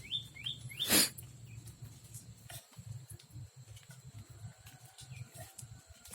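Small bird chirping: a few quick falling chirps at the start, then the odd short chirp. A short, loud rustle or knock comes about a second in.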